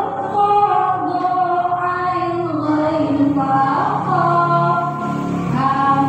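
Women's voices singing a slow melody with long held notes that slide between pitches, led by a woman singing into a microphone.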